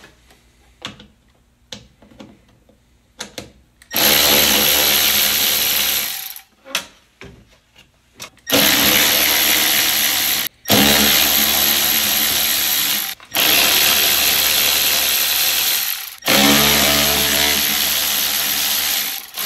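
Cordless electric ratchet running in five bursts of two to three seconds each, loosening the fasteners at a Jeep YJ's fuel filler neck. A few small handling clicks come before the first burst.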